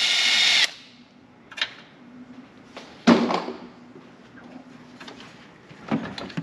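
A 24-volt cordless drill/driver with a socket running steadily as it backs out a bolt, stopping under a second in. It is followed by scattered plastic knocks and clatter, with one sharp louder knock about three seconds in, as the plastic headlight housing is worked loose.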